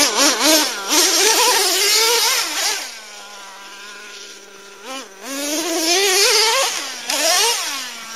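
Traxxas T-Maxx RC truck's modified 3.3 two-stroke nitro engine with a drilled-out resonator pipe, revving up and down in quick throttle blips. About three seconds in it drops to a quieter, steady idle, then blips and revs up again after about five seconds.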